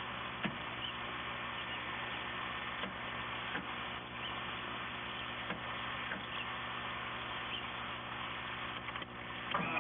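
Hydraulic pump of an amphibious float's retractable landing gear running steadily, pumping the gear up. A few light clicks sound over it.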